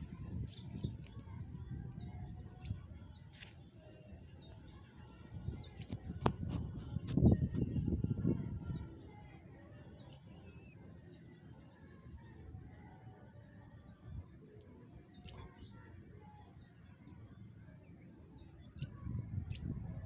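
Small birds chirping and twittering in the background, with a low rumbling noise on the microphone that swells to its loudest about seven seconds in and again near the end.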